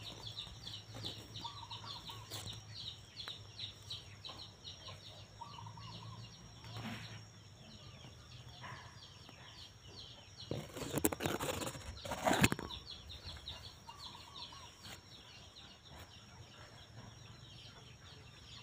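Chickens clucking now and then over a fast, steady, high-pitched ticking chirr, with a loud rustling burst about eleven to twelve seconds in.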